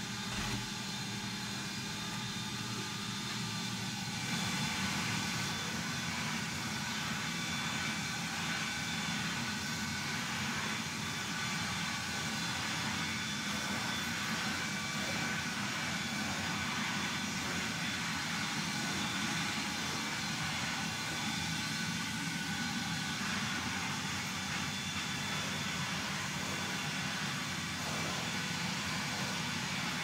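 Gordon Major cylinder vacuum cleaner running steadily, its motor whine over the rush of suction; the note changes about four seconds in.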